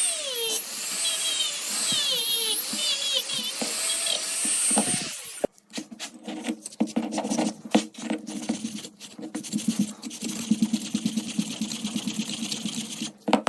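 Small power tool running on metal, its pitch sweeping up and down repeatedly; about five seconds in it cuts off and gives way to a lower steady hum with many irregular scraping clicks.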